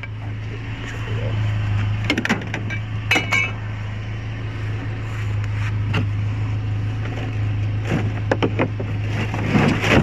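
Hard plastic power-tool case and loose metal pieces being handled, giving scattered knocks and clinks, with a short ringing clink about three seconds in, over a steady low hum.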